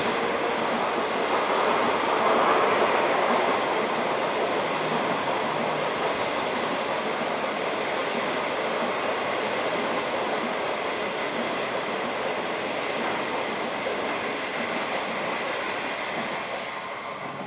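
Type 25T passenger coaches of a through train running past on the rails: a steady rush of wheel and air noise, with a hiss that swells about every second and a half. The sound drops away near the end as the last coach goes by.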